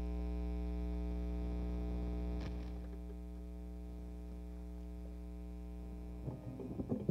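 Steady mains hum and buzz from an idle guitar rig, a Fender Tweed Deluxe clone amp with an Electro-Harmonix Double Muff fuzz pedal switched on, between passages of playing. The hum drops slightly after a faint click about two and a half seconds in, and faint scratchy string noises come in near the end.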